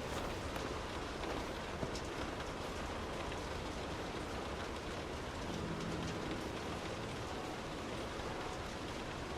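Steady rain heard from indoors, an even hiss with scattered sharper drop ticks.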